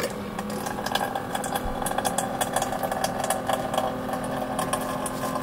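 Steady hum of a small portable electric fan running, with a dog panting close by.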